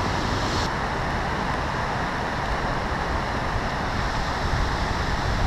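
Steady rushing of water pouring through a pond's outflow. A higher hiss drops away less than a second in.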